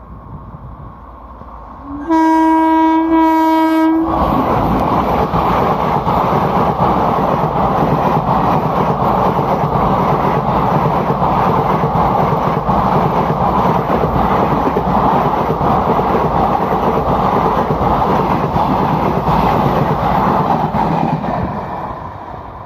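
Indian Railways express train's locomotive horn sounding one steady, single-pitched blast of about two seconds, then the train passing at speed: a loud, steady rush of wheels on rails with a fast clatter, fading away near the end.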